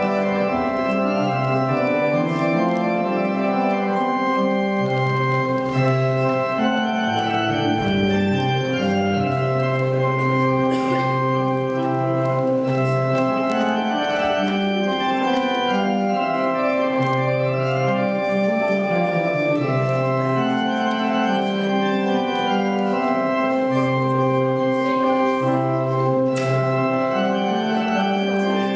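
Church organ playing the closing voluntary: sustained chords over a slowly moving bass line.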